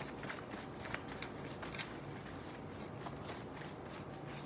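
A deck of tarot cards being shuffled by hand: a quick, continuous run of soft card clicks and rustles.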